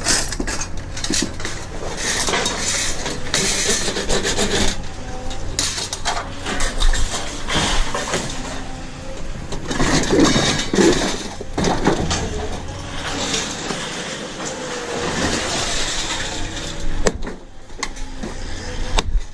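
Metal scraping, rubbing and knocking as a stubborn electric motor is wrenched and pried out of scrap. The noise is continuous and irregular, with the odd short squeak.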